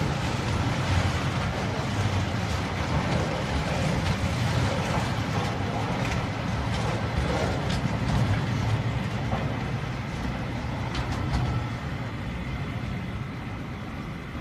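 Container wagons of a freight train rolling past: a steady rumble of steel wheels on rail, with clicks and clanks as the wheels pass over rail joints. The sound fades near the end as the last wagon goes by.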